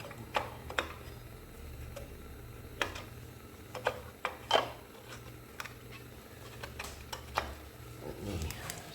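Irregular sharp clicks and knocks from hand tools and parts being handled, about one a second and loudest about halfway through, over a low steady hum.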